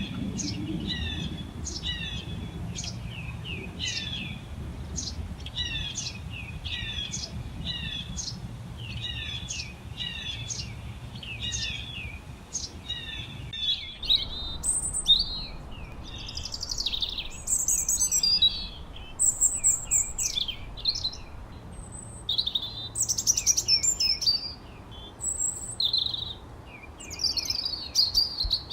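Songbirds chirping. At first one short call repeats about twice a second over a low background rumble. About halfway there is a cut to a different recording of varied, louder chirps and whistles.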